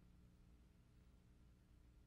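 Near silence: a faint steady low hum with hiss.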